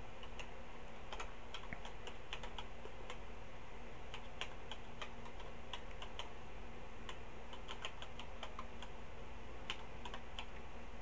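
Tandy TRS-80 Color Computer 2 keyboard being typed on: an irregular run of key clicks, over a faint steady hum.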